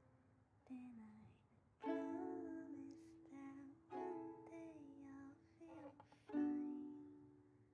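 Ukulele strummed in slow, single chords, four strums a couple of seconds apart, each left to ring out, with a soft voice singing along.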